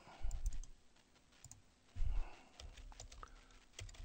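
Computer mouse and keyboard clicks, scattered and irregular, with a few dull low thumps, the strongest about two seconds in.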